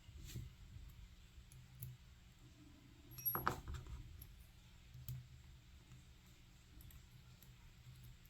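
Faint clicks and light taps of small metal lock parts, the pins of a disassembled pin tumbler lock, being handled on a work surface. There is one louder metallic clink with a brief high ring about three and a half seconds in.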